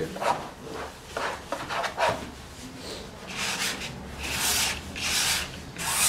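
Bristle brush scrubbing thick oil paint onto a stretched canvas in a series of short, scratchy strokes, several coming quickly in the second half.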